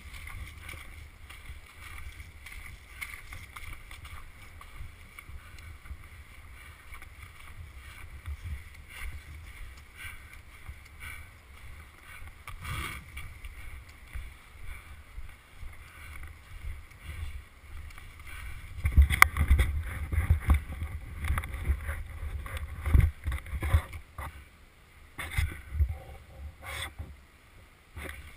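Low rumbling wind and handling noise on a body-worn GoPro. It grows louder about two-thirds of the way through, with irregular heavy thumps.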